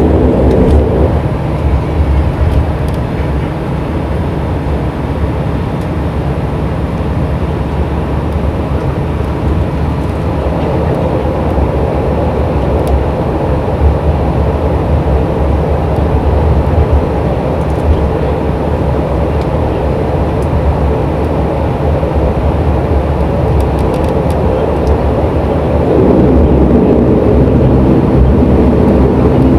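Dash 8 Q400 Pratt & Whitney PW150A turboprop and six-bladed propeller heard from inside the cabin while taxiing, as a steady drone and rumble. The buzzing propeller tone fades about a second in and comes back louder about 26 seconds in.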